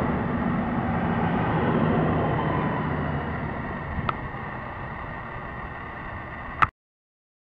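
SWEG diesel railcar moving away from the platform, its engine and wheel noise fading steadily. A small click about four seconds in and a sharper click just before the sound cuts off abruptly.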